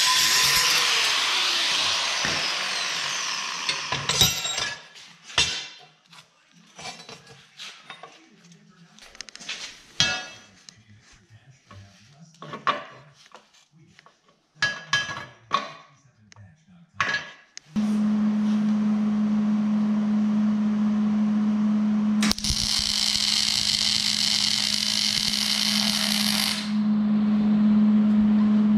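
Angle grinder cutting steel flat bar, fading out over the first few seconds. Then scattered metal clicks and knocks as parts are handled and fitted. Then a steady hum from a MIG welder, with a loud crackling hiss of welding from about the middle to near the end.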